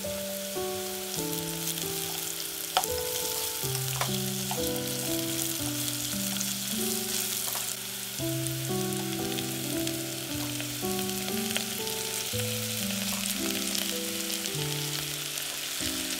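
Sliced leeks and broccoli stems sizzling in oil in a pot, with a steady crackle and a couple of sharp clicks. Background music with held notes plays underneath.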